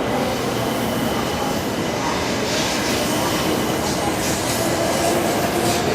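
Tōkaidō Shinkansen 700 series train departing: a steady running noise, with a hiss that grows about halfway through.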